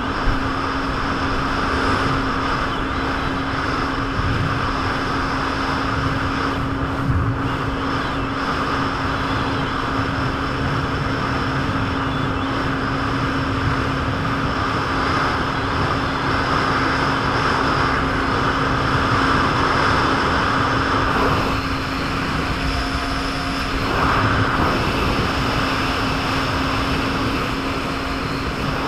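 Jet ski engine running steadily under way, its hum under a loud rushing of wind and water. The rushing eases for a few seconds about three quarters of the way through, then picks up again.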